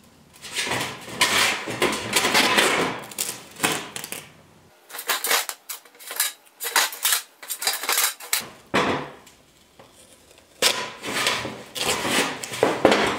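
Masking tape being unrolled and smoothed around a black steel stovepipe, with the pipe shifting and scraping on a stainless steel counter. The sound comes in irregular rustles and scrapes, with a run of crackling clicks in the middle.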